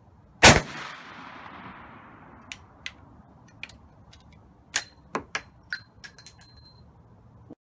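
A single shot from a single-shot breech-loading long gun, echoing and dying away over about two seconds. Then a string of sharp metallic clicks and ringing clinks as the hammer is worked and the breech is opened.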